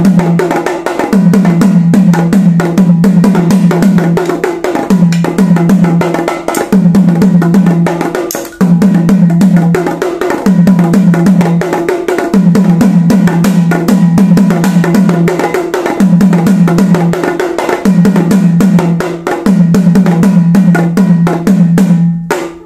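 A pair of bowl-shaped drums played with two wooden sticks in fast rolls and strokes. The playing comes in phrases of a few seconds with short breaks, over a steady low drum pitch, and stops abruptly at the very end.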